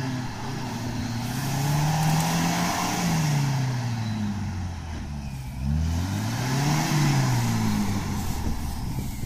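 Opel Frontera's engine revving under load as the 4x4 churns through a deep mud hole, the revs climbing and dropping twice, with a haze of wheel and mud noise over it.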